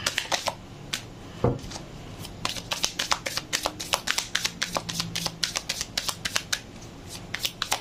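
A deck of tarot cards shuffled by hand: a rapid, irregular run of card clicks and snaps, thickening after the first couple of seconds, with one dull thump about a second and a half in.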